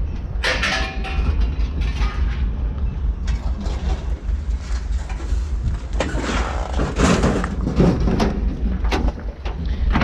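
A vehicle engine running with a steady low rumble. Louder clattering, mixed noises come over it twice, about half a second in and again from about six to eight seconds.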